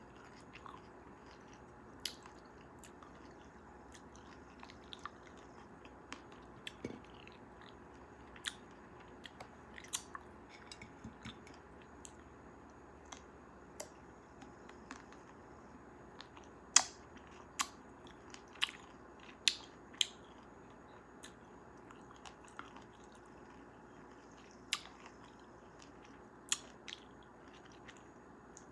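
Close-miked chewing and biting of cherries: wet mouth clicks and smacks at irregular intervals over a low hiss. A handful of louder clicks comes about two-thirds of the way through.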